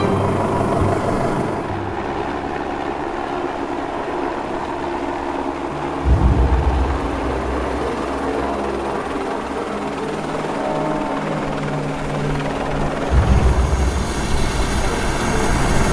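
Helicopter rotor beating as a California Highway Patrol helicopter flies low overhead, coming in loud about six seconds in and again near the end.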